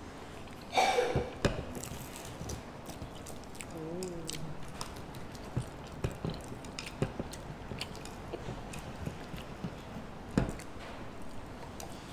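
Close-miked eating of crispy fried chicken: biting and chewing with many small crunches and clicks of fingers and food against plates, a louder burst about a second in, and a short hummed voice sound about four seconds in.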